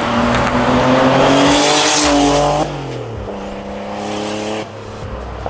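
1986 Porsche 930 Turbo's air-cooled flat-six, fitted with a big single turbo, external wastegate and free-flowing exhaust, on a hard acceleration run. The note climbs with a loud hiss over it, falls suddenly about two and a half seconds in, and pulls on more quietly. Near the end it lifts off with a few sharp pops as the exhaust spits flame.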